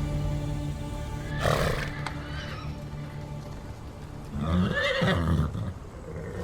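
A horse whinnies twice, a short call about a second and a half in and a longer one near the end, over background music.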